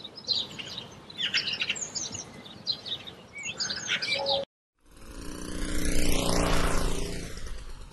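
Small birds chirping and tweeting for about four seconds. Then, after a sudden cut, a motor scooter's engine swells as it approaches and passes close by. The scooter is the loudest sound.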